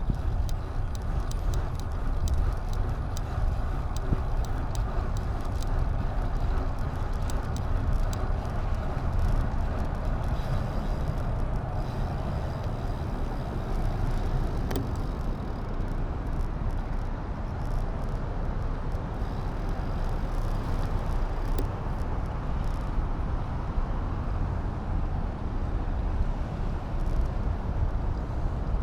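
Steady wind rush on the microphone with rolling road noise while riding, strongest in the low rumble, and light scattered clicks that thin out after about halfway.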